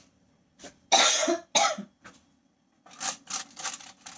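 A person coughing, two harsh bursts about a second in. Then a rapid run of sharp clicks, several a second, as metal tongs work the ribs against a metal sheet pan.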